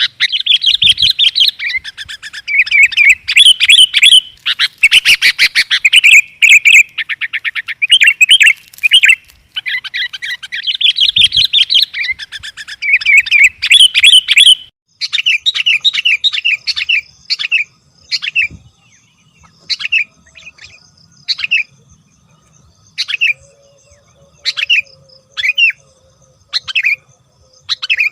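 Sooty-headed bulbul (kutilang) calling, played as a lure track. A dense run of quick chirps fills the first half. About halfway through it switches to short calls spaced roughly a second and a half apart, over a faint steady high tone.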